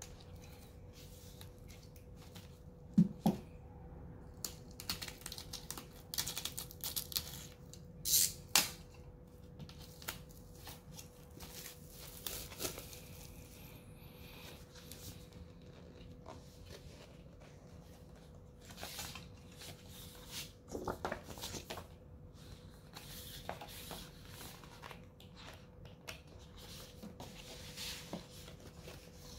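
Plastic wrapping being crinkled and torn off a vinyl LP jacket, with the cardboard sleeve handled and opened. There are bursts of rustling and crackling and a sharp thump about three seconds in.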